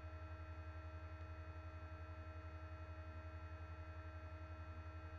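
Steady electrical hum with a fast, even pulsing, the noise of a poor laptop microphone.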